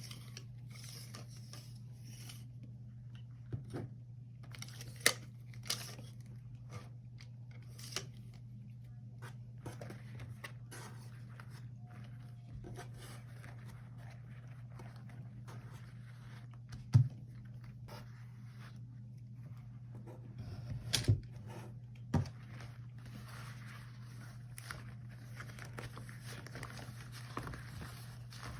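Rubber gloves handled close to the microphone: rubbing and stretching with sticky crackles, broken by a few sharp snaps, the loudest about two-thirds of the way through and a quick cluster a few seconds later. A steady low hum sits underneath.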